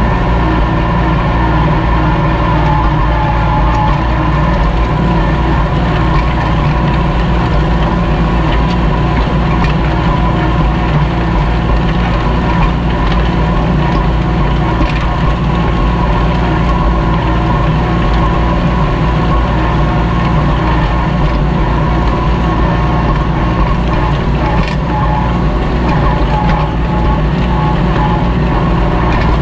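Kubota L2501 tractor's three-cylinder diesel engine running steadily under load while it pulls a disc harrow through the soil.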